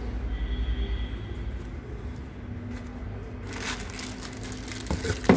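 Hands handling a plastic-wrapped power adapter: a brief rustle of the plastic bag about three and a half seconds in and a knock near the end, over a steady low hum.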